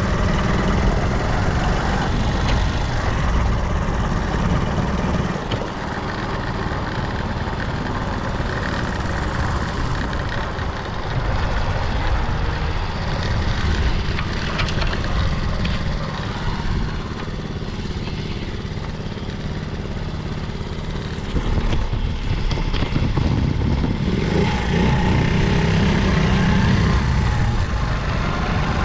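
Vintage Honda Gorilla Z50J's small single-cylinder four-stroke engine running, quieter through the middle and louder again for the last several seconds, with no abnormal noises, which the seller takes as a sign of a healthy engine.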